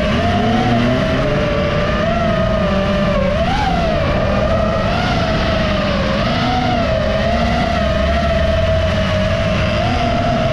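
FPV racing quadcopter's motors and propellers whining, the pitch wavering up and down with throttle, over a low rumble of wind and race car engines. A car engine's pitch rises in the first second.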